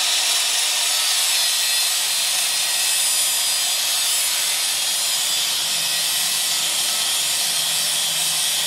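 Electric angle grinder with a cut-off wheel running steadily under load, grinding through steel to cut off a stuck bolt on the lawn cart's tongue.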